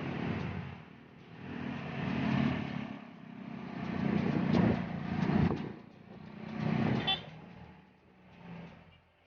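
Road traffic: cars and motorcycles passing one after another, their engine and tyre noise swelling and fading. A short horn toot sounds about seven seconds in.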